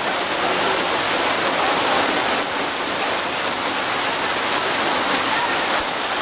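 A steady, even hiss like heavy rain, with faint voices under it.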